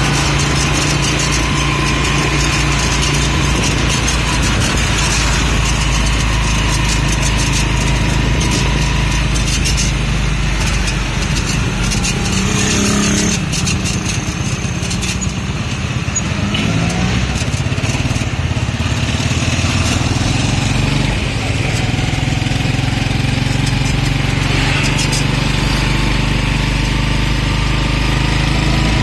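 Motor vehicle engine running steadily while driving along a road, with wind and road noise, heard from on board.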